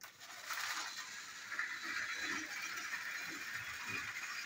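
Battery-powered TrackMaster and Tomy Plarail toy trains running along plastic track, their small motors and gears whirring with a steady high whine. A low rhythmic clatter comes about twice a second as they roll over the track.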